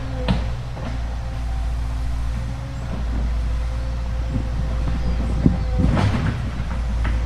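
Excavator engine running steadily under load, with a steady whine over it and a few sharp knocks, one just after the start and two near the end.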